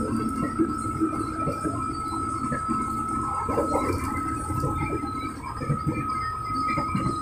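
Electric commuter train running, heard from inside the carriage: steady running noise with a steady high tone throughout and scattered light knocks.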